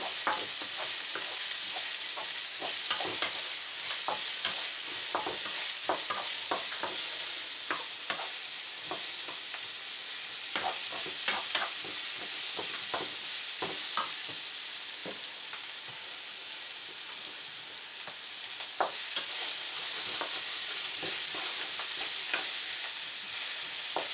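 Vegetables sizzling in hot oil in a non-stick frying pan, stir-fried with a wooden spatula that scrapes and knocks against the pan in quick irregular strokes. The sizzle eases a little about two thirds of the way through.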